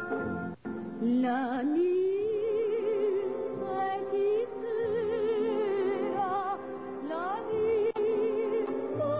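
A woman's voice singing in lyric, operatic style with wide vibrato over instrumental accompaniment; about a second in she slides up into a long held note, with another upward slide near the end.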